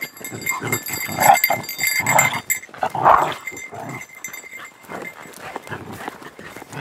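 Four short animal calls about a second apart in the first four seconds, from the pack dogs and goats, over light footfalls on dirt.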